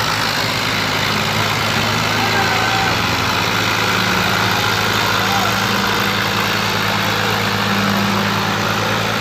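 Two farm tractors' diesel engines running hard under full load, chained back to back and pulling against each other in a tractor tug-of-war, making a steady heavy engine drone. The drone swells a little partway through.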